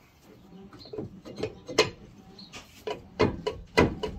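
Rear brake rotor and hub on a Nissan Xterra's M226 rear axle being rocked by hand: faint scraping and light clicks, then from about three seconds in a run of sharp knocks about three a second. The knocking is loose play from a failing axle bearing.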